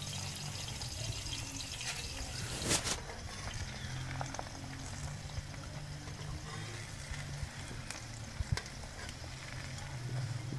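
Ghee-brushed paratha sizzling on a hot iron tawa: a steady soft hiss, with one short louder burst about three seconds in and a couple of light clicks near the end.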